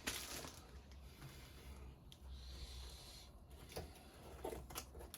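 Quiet room with a low steady hum; a soft breath about two and a half seconds in, and a few faint clicks near the end.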